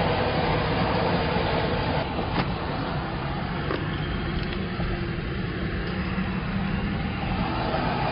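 Steady road and engine noise of a car driving slowly, heard from inside the cabin.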